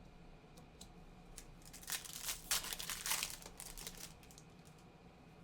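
A trading card pack's wrapper crinkling and tearing as a 2024 Topps Update hobby pack is ripped open, a burst of crackles about two seconds in that lasts roughly two seconds.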